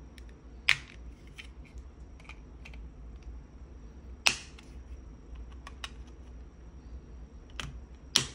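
A flathead screwdriver prying apart the plastic case of a Chamberlain garage door opener remote, scraping and ticking in the seam. There are two sharp plastic snaps as the case clips let go, one under a second in and one about four seconds later, and two smaller clicks near the end.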